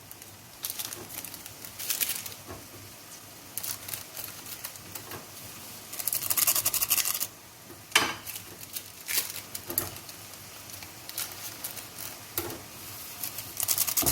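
Instant-noodle seasoning sachets being torn open, crinkled and squeezed out over the pot: several short rustling, tearing bursts, with a couple of sharp clicks in the middle.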